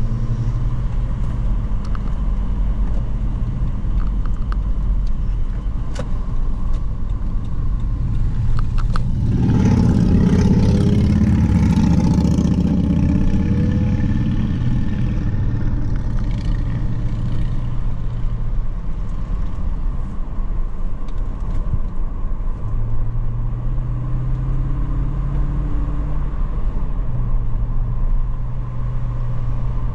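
Car engine and road noise while driving a winding mountain road, with the engine note shifting up and down. A louder rushing swell lasts about four seconds, starting about nine seconds in.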